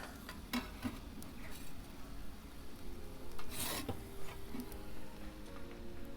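Light clicks and a short rasping scrape about three and a half seconds in, at a charcoal-fired pizza oven while a pizza bakes on its stone.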